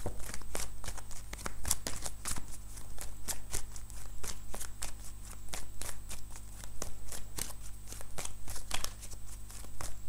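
A deck of oracle cards being shuffled by hand: a quick, uneven run of soft card clicks and slaps, several a second, without pause.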